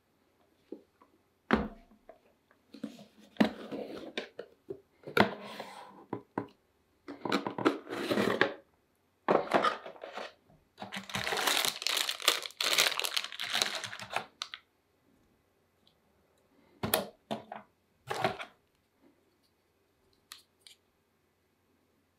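Plastic wrapping crinkling and a cardboard box being handled as parts are unpacked, in a series of rustling bursts. Near the end come a few short, separate handling sounds.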